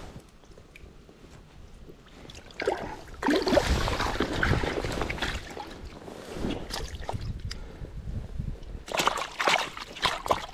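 Creek water splashing and sloshing in irregular bursts, quiet for the first couple of seconds, busiest a few seconds in and again near the end.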